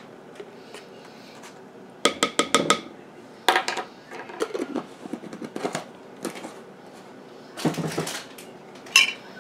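Tablespoon measure clinking and scraping against a glass jar of minced garlic as the garlic is scooped out. A quick run of five or six ringing clinks comes about two seconds in, then scrapes and a few single clinks.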